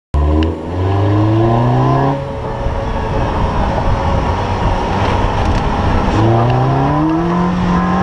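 Car engine accelerating, its revs climbing in pitch, then a stretch of loud road and wind noise, then the revs climbing again near the end.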